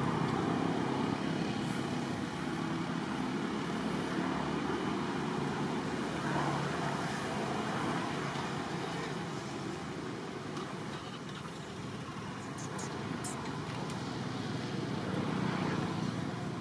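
Steady outdoor background noise like distant road traffic. Two faint high chirps come about two and three seconds in, and a few sharp high ticks come near the end.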